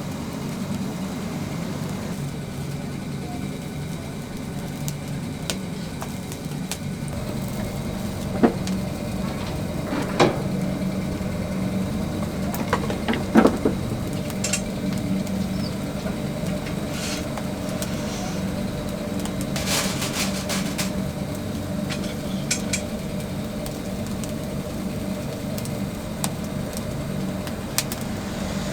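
A steady mechanical hum with several pitched lines, broken by scattered clicks and knocks.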